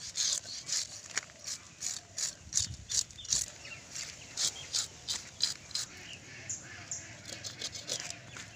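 A toothed metal fish scaler scraping the scales off a big silver carp in quick, repeated rasping strokes, about three a second.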